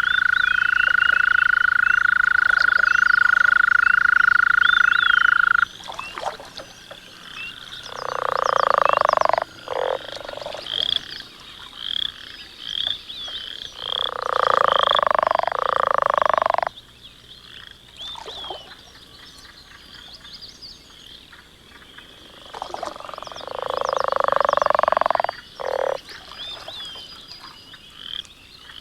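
Toads and frogs calling at a wetland. One long steady trill stops suddenly about six seconds in. Then come several loud croaking calls, each a second or two long, over a chorus of small high peeping chirps.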